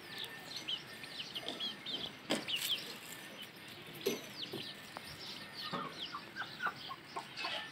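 A flock of young chickens peeping with many short, high chirps, joined by a few lower clucking calls in the second half. A sharp click comes a little over two seconds in.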